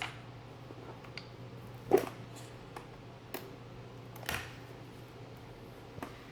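A few separate light clicks and knocks of objects being handled, the loudest about two seconds in, over a steady low hum.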